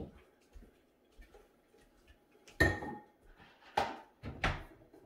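Kitchenware clanking: three sharp knocks of dishes or utensils about a second apart, the first the loudest with a short ring.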